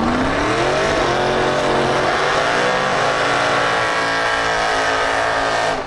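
Drag race car's engine revving up over about a second, then held high and steady as the car does a burnout, spinning its rear tires to heat them before the launch. It cuts off suddenly at the end.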